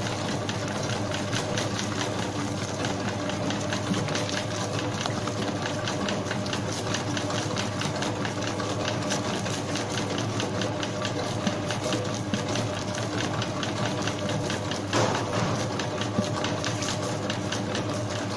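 Commercial spiral dough mixer running steadily, its motor humming while the spiral hook kneads a large batch of bread dough in the steel bowl, with a fast, even rhythmic clatter. A louder knock about fifteen seconds in.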